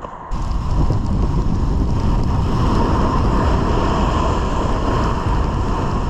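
Loud wind buffeting the microphone: a steady rushing noise that cuts in abruptly a moment in and holds level.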